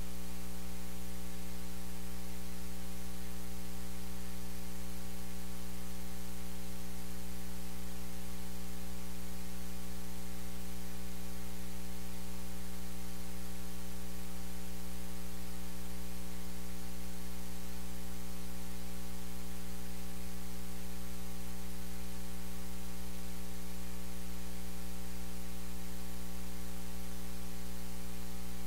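Steady electrical mains hum with a stack of buzzing overtones over a constant hiss, unchanging throughout; no speech or other sounds come through.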